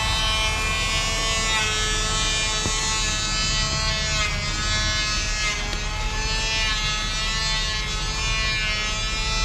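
An electric motor running with a steady buzzing whine, its pitch wavering slightly.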